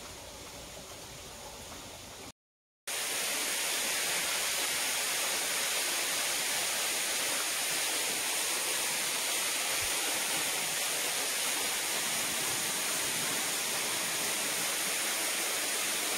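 Steady rushing hiss of flowing water, even and unbroken, with no other sound over it. It follows a brief cutout about two seconds in; before the cutout there is a softer, fainter hiss.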